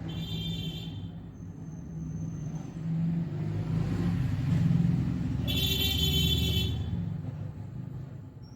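Road traffic: a vehicle rumbles past, louder in the middle, with two short vehicle-horn blasts, one at the start and one about five and a half seconds in.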